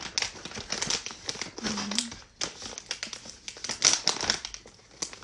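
Clear plastic wrapping crinkling and crackling in irregular bursts as it is handled and torn open by hand to break its seal, loudest about four seconds in.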